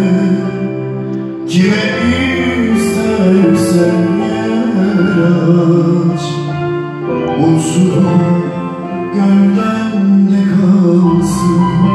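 A man singing a slow Turkish song into a microphone with electronic keyboard accompaniment, amplified through PA loudspeakers. The voice holds long, wavering notes.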